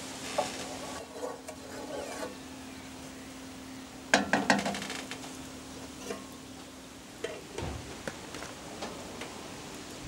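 A wooden spoon stirs and scrapes in a large aluminium pot of milk, knocking against the metal now and then, with a louder clatter about four seconds in. A steady low hum runs underneath.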